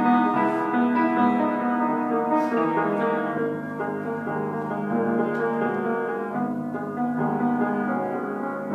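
Cello and upright piano playing a cello sonata together, with long held notes over the piano.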